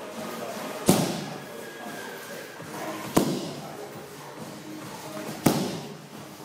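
Three hard strikes slapping into handheld pads, a little over two seconds apart, each echoing through a large hall.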